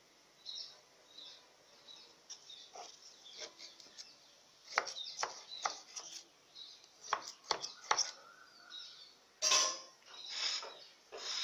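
Knife blade scraping and tapping against the inside wall of an aluminium cake tin, loosening a set pudding from its sides: a run of light clicks and scrapes, with a louder knock about nine and a half seconds in.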